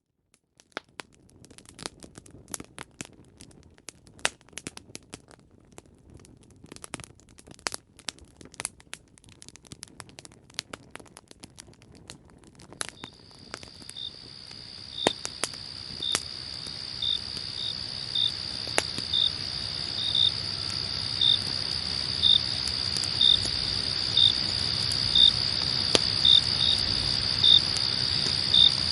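Campfire crackling and popping, coming in from silence. About 13 seconds in, crickets join with a steady high trill and a chirp about once a second, growing louder toward the end.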